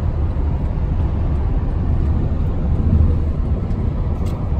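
Steady low road and engine noise inside a moving car's cabin at highway speed.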